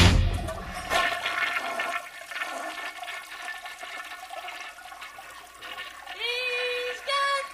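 Toilet flushing: a rush of water that fades over the first two seconds into a lower swirl and trickle. Two short high held tones come near the end.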